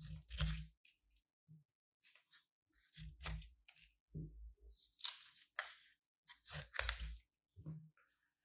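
Scissors cutting through thin green patterned paper: a series of short crisp snips, roughly one a second, stopping near the end.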